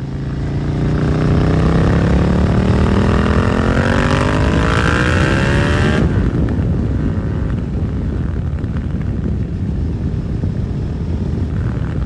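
Suzuki SV650 V-twin with a Dominator GP aftermarket exhaust pulling away under throttle: the engine note climbs steadily for about six seconds, then drops away abruptly, leaving a rougher engine sound mixed with wind and road noise.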